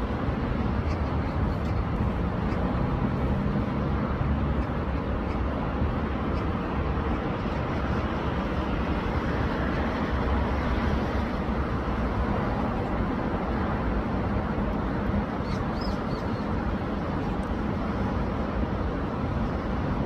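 Rushing water of a rain-swollen city stream, a steady, even rush. A brief faint high chirp about three-quarters of the way through.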